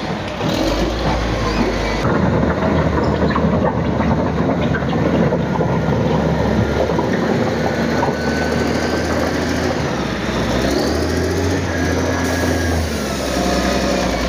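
Diesel engine of a Caterpillar wheel loader running under load as the machine pushes earth, with a noisy mechanical rumble. The engine revs up and then drops back about three-quarters of the way through.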